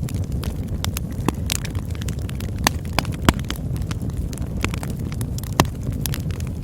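Campfire burning: a steady low rumble of flames with irregular sharp crackles and pops from the burning wood, a few louder snaps among them.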